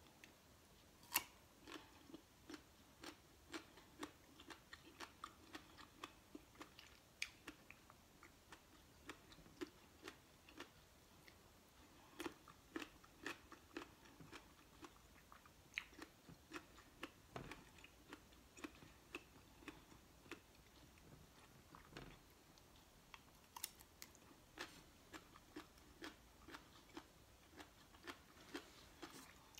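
Close-up chewing of crisp mango slices: a steady run of sharp crunches, a few a second, with a louder bite about a second in and another a little past twenty seconds in.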